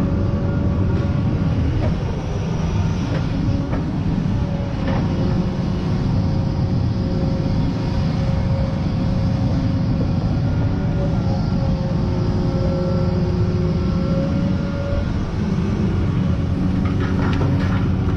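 Kobelco excavator's diesel engine running steadily, a heavy rumble with a steady whine over it.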